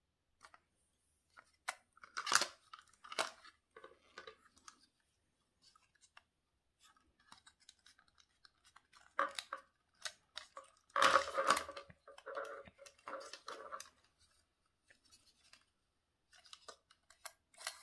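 Hard plastic toy housing being handled and shifted by hand: irregular clicks, scrapes and rattles of plastic parts, loudest about two seconds in and again around eleven seconds in.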